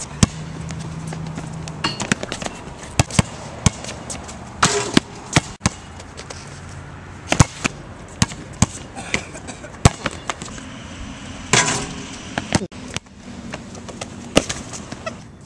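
A basketball bouncing on an outdoor hard court: irregular sharp bounces as it is dribbled, with a few louder single smacks.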